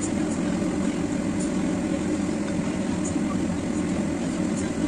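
A steady low rushing hum of kitchen noise, with a few faint light ticks as a silicone spatula stirs potatoes, carrots and liver in the pan.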